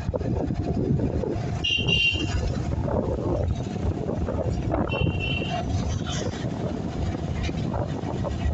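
Steady wind rush and road and engine noise from a moving vehicle, open to the air, travelling along a highway. Two short high-pitched tones sound about three seconds apart.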